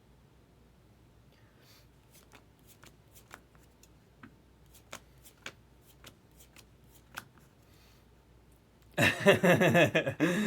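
Trading cards being handled: faint scattered clicks and slides of cards, then a loud rapid flurry about nine seconds in.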